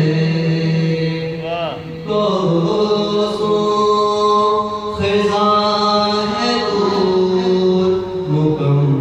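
A man singing a manqabat, an Urdu devotional poem, solo in a chanting style with long drawn-out notes. About two seconds in there is a quick ornamental turn in the melody.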